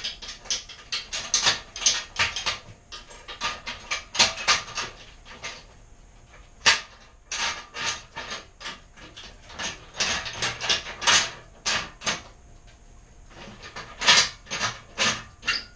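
Quick metal clicks and knocks from a pressure pot's lid and clamp screws being fitted and turned down to seal it, coming in runs of rapid clicks with a couple of short lulls.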